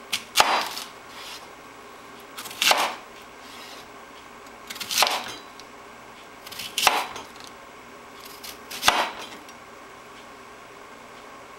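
Knife cutting through a fennel bulb and striking a wooden cutting board: five single cuts, about two seconds apart.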